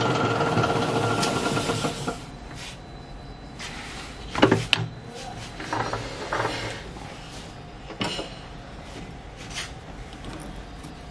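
Metal lathe running with its four-jaw chuck spinning, a steady hum with several held tones, switched off about two seconds in. After that, a few sharp metal clanks and knocks as the sprocket assembly is handled in the stopped chuck.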